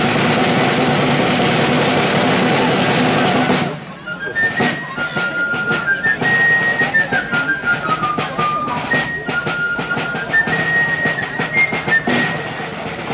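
Folk dance music for a sword dance. A full, dense band sound breaks off after a few seconds, and a single high wind instrument carries the tune alone, note by note, over sharp clacks from the dancers' swords and shoes on the wooden stage. The fuller sound comes back near the end.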